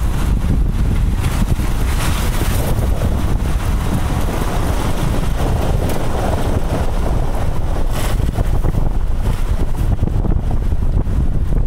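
Wind buffeting the microphone over the steady low rumble of a moving car, with a few louder gusts, one near the start and one about eight seconds in.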